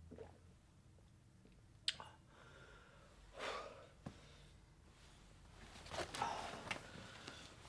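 Quiet room sounds: a sharp click about two seconds in, a short breath or sigh, another click, then a stretch of cloth rustling near the end as a trenchcoat and hat are handled.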